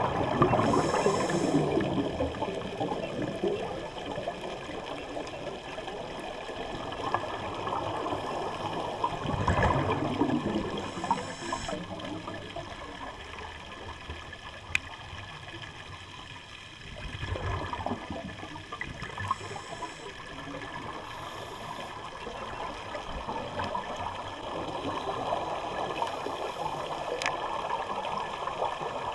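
Scuba diver breathing through a regulator underwater: a hiss on each inhalation, then a gurgling rush of exhaled bubbles. The cycle repeats every several seconds.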